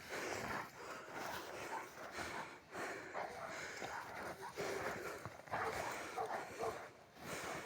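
Dogs making quiet, irregular noises close by, with a few short high-pitched sounds.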